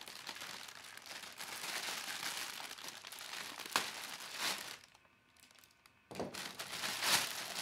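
Thin plastic bag crinkling as hands grip and pull at its knotted top, with a single sharp snip about halfway through as it is cut open. The crinkling stops briefly, then starts again as the bag is handled.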